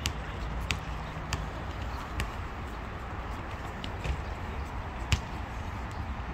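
Footsteps of someone walking, heard as sharp, irregular taps, closer together in the first couple of seconds and further apart after that, over a steady outdoor background hum.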